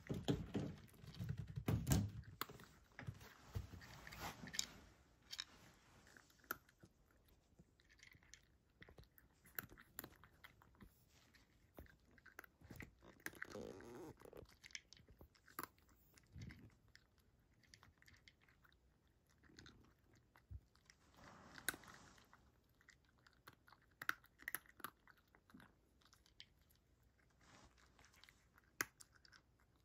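A cat eating dry kibble from a dish, chewing with faint, sharp crunches: dense in the first few seconds, then coming in scattered bunches.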